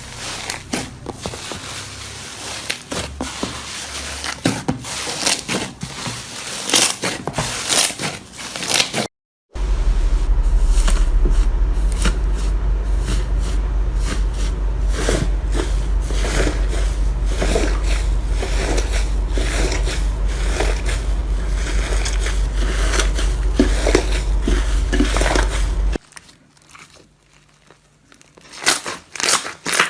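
Slime being squeezed and pressed by hand, giving dense crackling clicks and pops. A short silent break comes about nine seconds in. Through the middle stretch a steady low hum runs under the crackling, and it cuts off abruptly later on, followed by a quiet spell before the crackles return near the end.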